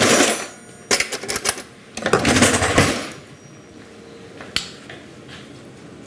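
A teaspoon scraping and clinking in a mixing bowl as sugar is added to bread dough ingredients, in several short clattering bursts, then a single sharp click about four and a half seconds in.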